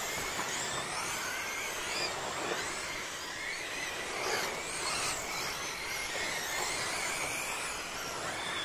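Several electric radio-controlled short-course trucks running at speed on a dirt track, their motors giving overlapping high whines that rise and fall as the trucks pass.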